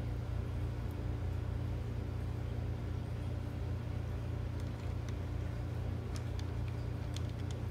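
Steady low mechanical hum in a room. A few faint light clicks in the second half come from a cat pawing kibble among the plastic pegs of a treat puzzle toy.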